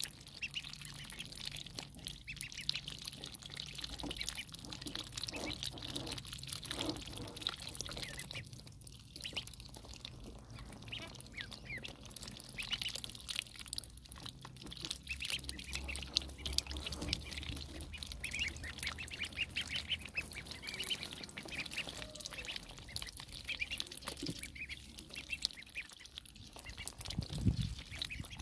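A flock of ducklings peeping continuously, many short high-pitched calls overlapping, as they drink and dabble at a shallow basin of water.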